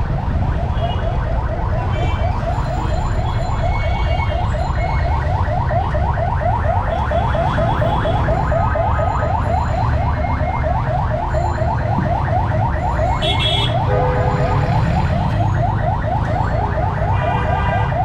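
An electronic vehicle alarm sounding nonstop as a fast run of rising chirps, several a second, over a low rumble of street traffic.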